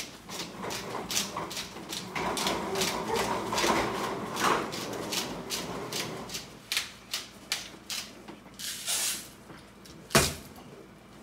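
Hand-held salt grinder being twisted, a quick run of small clicks and crunches, then one solid knock about ten seconds in as it is set down on the table.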